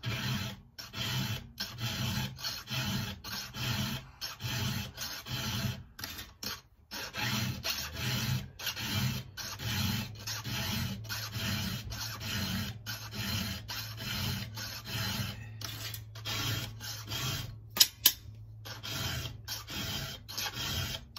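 A round file being stroked across the cutter teeth of a Husqvarna 266 XP's chain, sharpening it by hand in a steady rasping rhythm of about two strokes a second, with a brief pause partway through. Two sharp clicks sound close together near the end.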